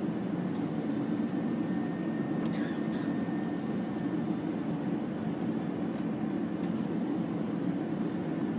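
Steady airliner cabin noise: the jet engines and rushing air heard from inside the passenger cabin, an even low rumble that holds level throughout.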